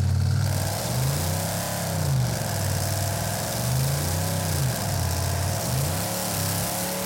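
Whipple-supercharged LSX V8 of a 900 hp tandem-axle Chevy C10 revving up and down several times, loud, as its rear tyres spin on wet pavement at the start of a burnout.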